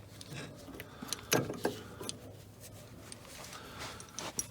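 Metal car parts being handled, giving scattered light clinks and knocks, with two louder knocks about a second and a half in and a few quick clicks near the end.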